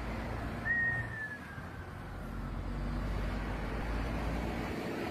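Steady traffic rumble and road noise on a highway. About a second in comes a single whistle-like tone that slowly falls in pitch.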